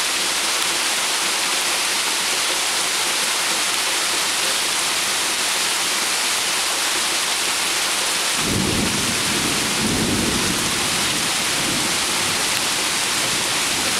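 Heavy rain pelting a backyard pond's water surface, along with the splash of a small rock waterfall. A little past halfway, a low rumble of thunder rolls in for a few seconds and fades.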